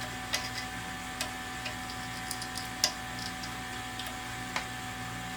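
Light, irregular clicks and taps of plastic parts and cable being handled during assembly of an XTool D1 laser engraver, the sharpest click about three seconds in, over a steady faint hum.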